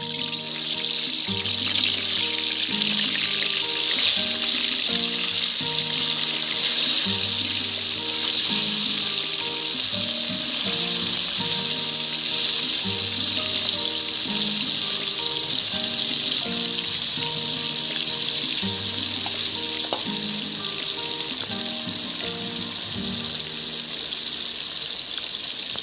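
Small topse fish (paradise threadfin) frying in hot oil in a wok: a loud, steady sizzle throughout. A background music tune plays under it.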